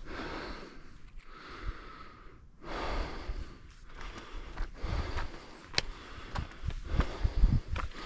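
A hiker breathing hard, in long noisy breaths about a second each, with footfalls thudding and scuffing on the trail in the second half.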